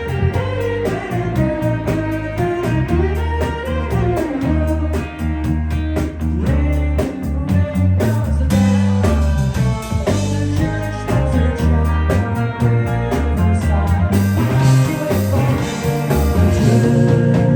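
Live rock band playing a song: electric guitar over drums and bass with an even beat, swelling louder and brighter near the end.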